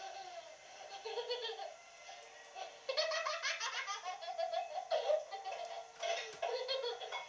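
A young child giggling and laughing in short bursts while a pit bull licks and nuzzles at his face, the laughter loudest about three seconds in.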